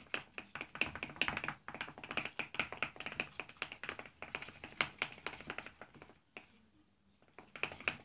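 A pencil stirring a runny glue slime mixture in a plastic bowl, tapping and clicking rapidly against the bowl several times a second. The stirring stops about six seconds in and starts again near the end.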